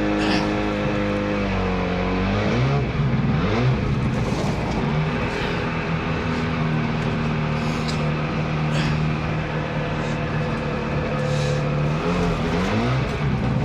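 Boat motor running with a steady pitched hum over rushing water. Its pitch drops about two seconds in, wavers up and down, settles at a steady speed, then sweeps again near the end.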